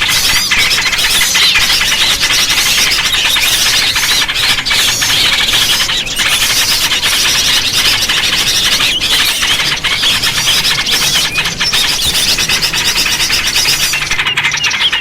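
A dense chorus of many small birds chirping and twittering at once, a continuous high-pitched chatter. It is a bird-luring call recording meant to draw small birds in.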